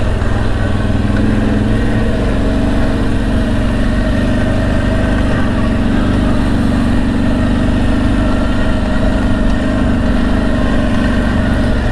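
CFMoto X8 ATV's V-twin engine running steadily, with an even, unchanging note.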